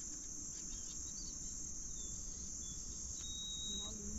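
Steady high-pitched chorus of crickets, with a few thin whistles and one longer held whistle near the end.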